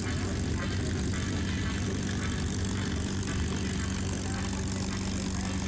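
North American P-51D Mustang's Packard Merlin V-12 engine running at taxi power as the fighter rolls past, a steady, even drone.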